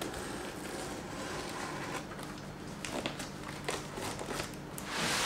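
Snap-off utility knife slitting plastic packing tape on a cardboard box: crackling and scraping of tape and cardboard with scattered clicks, and a louder tearing sound near the end.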